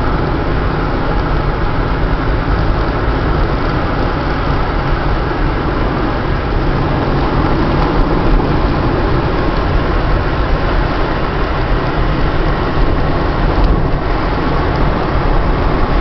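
Steady low rumble of road and engine noise from a moving car.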